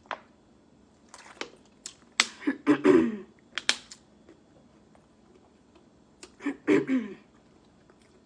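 Close-miked eating sounds: sharp wet clicks and mouth smacks, with two louder bursts of chewing about two to three seconds in and again near seven seconds.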